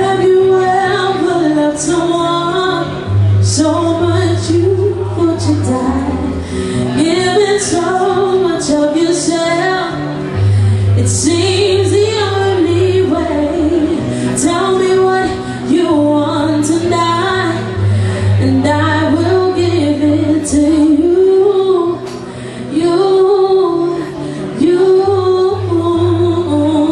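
A woman singing live into a microphone in phrases of a slow melody, accompanying herself on electric guitar, with low held notes that change every couple of seconds.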